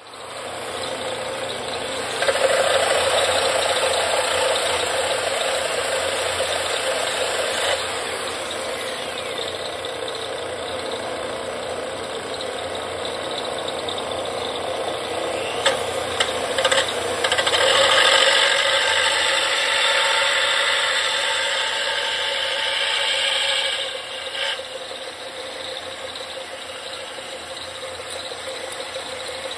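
Bench disc sander running while the end of a 1/2-inch dowel rod, spun in a hand drill, is ground flat and bevelled against the disc. The grinding grows louder for a stretch about two seconds in and again from just past halfway, with a few sharp clicks shortly before the second stretch.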